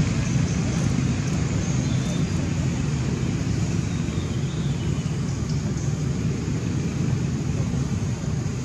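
Steady low outdoor rumble at an even level, with no monkey calls heard.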